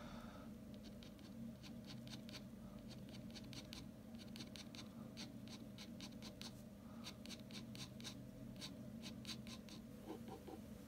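Ballpoint pen tip scratching on drawing paper in quick, short strokes, a few a second in runs, as fine hair lines are hatched in. Faint, with a steady low hum underneath.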